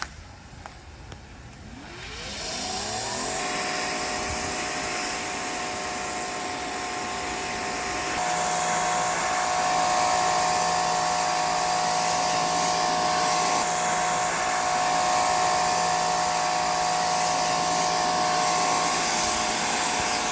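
Greenworks Pro 2300 PSI electric pressure washer starting up about two seconds in, its motor whine rising quickly in pitch, then running steadily with a strong high hiss.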